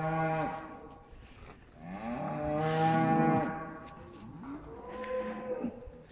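Fattening cattle mooing in a pen: three calls. The first ends about half a second in, a long, loud one follows about two seconds in, and a shorter, lower one comes near the end.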